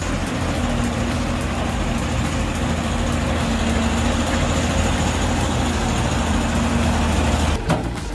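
Large wood chipper running steadily: a heavy engine drone under a dense rushing, grinding noise from the machine. The sound drops and changes near the end.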